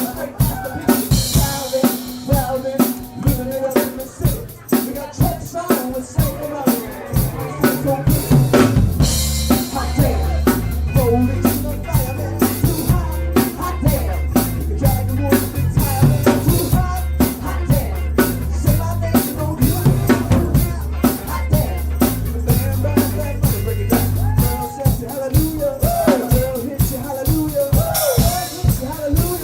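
Live band playing a funk cover, led by a busy drum kit with snare, kick and rimshots. A heavy bass line comes in about a third of the way through and drops out again near the end.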